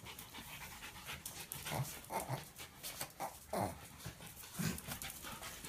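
Small pet dogs whimpering and yelping in four or five short calls, one sliding down in pitch, with light clicks between them.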